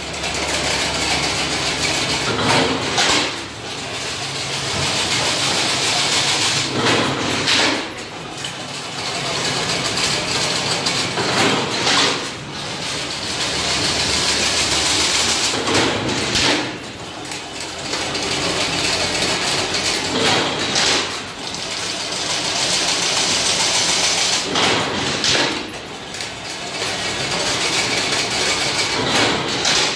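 Automatic chain-link fence machine running in a repeating cycle: a steady mechanical clatter, broken about every four and a half seconds by a sharp clank and a brief lull.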